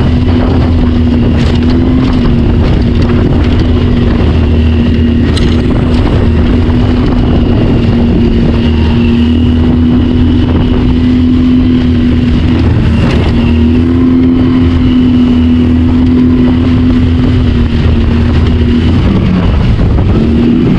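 Outboard motor driving a small inflatable boat under way through rough chop, running at a steady pitch that falls away near the end. A few sharp knocks cut through, about a second and a half, five and thirteen seconds in.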